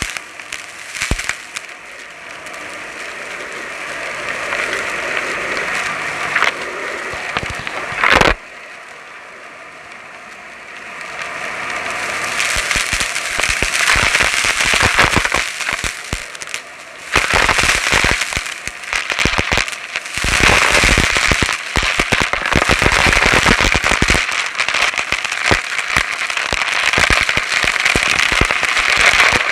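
Dyson Light Ball upright vacuum cleaner sucking up crunchy debris: dense crackling and popping as the bits are pulled into the cleaner head, over the steady rush of the motor. The crackling eases off for a few seconds near the middle, then comes back.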